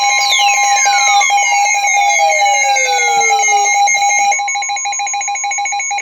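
Electronic emergency alert tones from a weather radio broadcast announcing a flash flood warning. A steady beep near 1 kHz (the weather radio's 1050 Hz attention tone) sounds under a louder, rapidly pulsing alarm tone. Several falling pitch sweeps run through it, and the pulsing stops about four seconds in.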